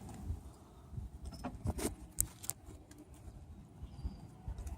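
A few sharp, light metallic clicks and knocks over a low rumble, from a floor jack being moved and set in place, with the clearest knocks bunched a second and a half to two and a half seconds in.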